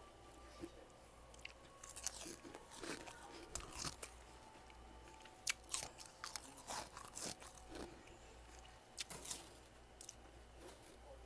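Close-miked bites and chewing of freezer frost: irregular crisp crunches, the sharpest about halfway through, over a faint steady hum.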